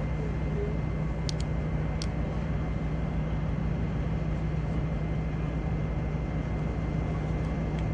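Steady, unbroken engine drone with a deep hum and a thin constant high whine, with a few short clicks about a second and two seconds in.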